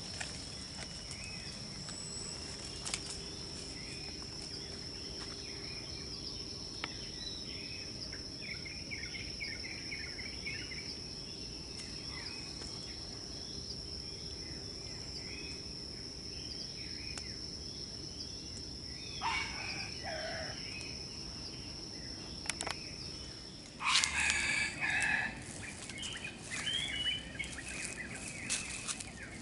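A junglefowl crows once, about two-thirds of the way in, over a steady high-pitched insect drone and scattered small-bird chirps. The drone cuts off suddenly near the end, giving way to a louder, noisier stretch of calls.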